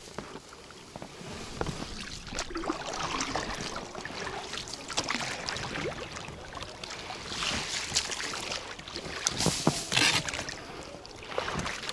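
Irregular swishing and splashing of water, with a few light knocks, as someone moves through shallow water.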